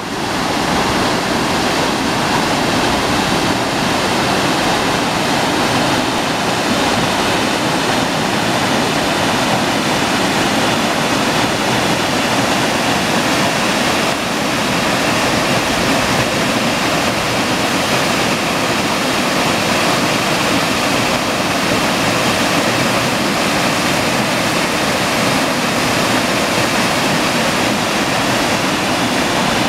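Mountain waterfall: white water pouring steadily down a rocky cascade and breaking over boulders, a loud, even rush.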